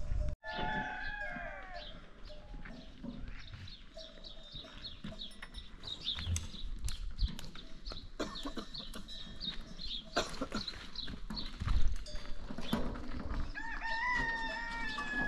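A rooster crowing: a short call just after the start and a long, steady call near the end. Short high chirps run throughout, and there is a single thump about three-quarters of the way through.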